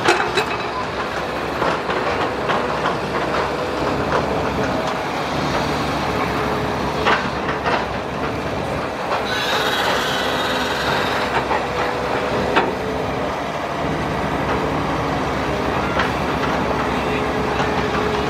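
Matador crawler excavator working: its diesel engine running steadily under load as the arm swings and digs, with scattered metallic clanks from the bucket and steel tracks. About ten seconds in, the bucket scraping through the dirt of the ditch adds a rushing, gritty noise.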